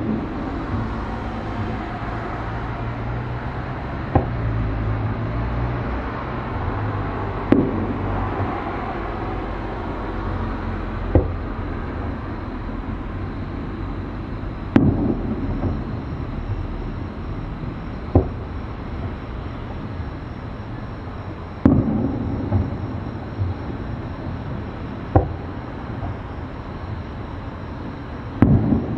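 Distant aerial fireworks shells bursting, about nine sharp bangs spaced roughly three and a half seconds apart, each with a short echoing tail, over a steady low background rumble.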